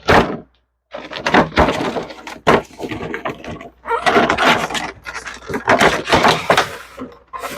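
Cardboard box and plastic packaging of a vinyl figure being handled and opened, with repeated crackling, rustling and sharp clicks.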